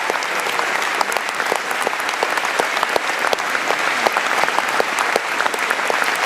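Theatre audience applauding steadily: dense, continuous clapping from many hands.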